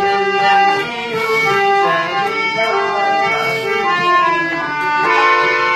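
Harmonium playing a melody in held, reedy notes that change pitch one after another, with a small electronic keyboard played along with it.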